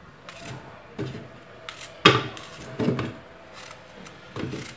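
Apples being cut with a knife and the pieces dropped into a blender jar: a few irregular knocks, the loudest about two seconds in.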